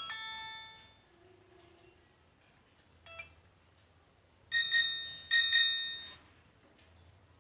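Nokia mobile phone ringtones and alert tones: a synthesized melody fades out in the first second, a short beep sounds about three seconds in, then two bright chiming bell-like tones strike about a second apart and ring out.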